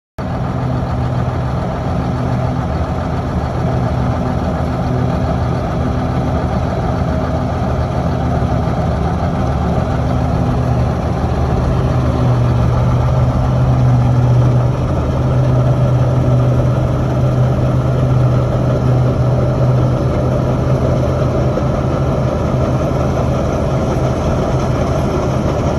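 John Deere 6920S tractor's diesel engine running steadily under way, a low, even drone that swells slightly about halfway through.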